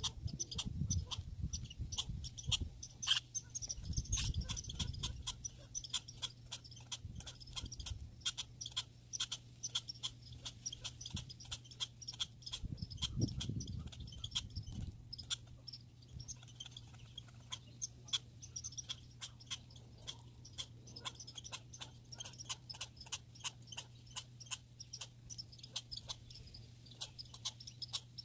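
Squirrel sounds: a long run of rapid, sharp, irregular clicks, with a steady low hum underneath.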